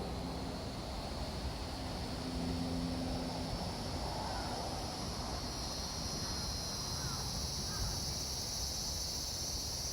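A steady, high-pitched insect chorus that grows louder about four seconds in, over a low background rumble, with a few faint chirps in the middle.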